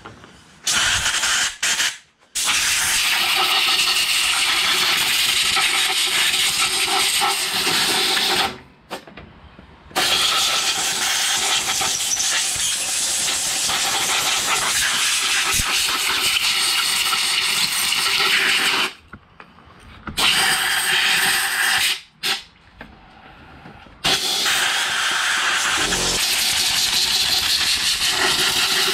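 Pressurised spray hissing in repeated bursts as a differential housing is blasted clean, with brake cleaner and compressed air. There is one short burst, then long bursts of several seconds each with brief pauses between.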